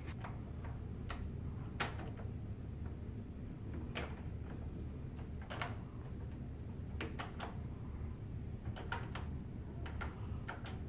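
Black ball-knob interior privacy lockset clicking as its knob, latch and lock are worked: a dozen or so light, irregular clicks a second or so apart, over a steady low hum.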